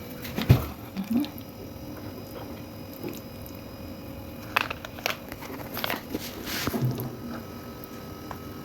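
A person eating spaghetti with beef and chewing, with scattered short clicks and soft mouth sounds.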